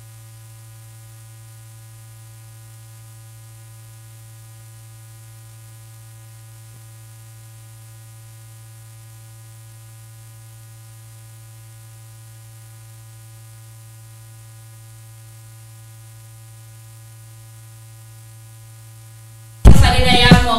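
Steady electrical hum with a buzzy series of overtones, the sound of an open broadcast audio feed carrying no programme sound. A woman's voice cuts in about a second before the end.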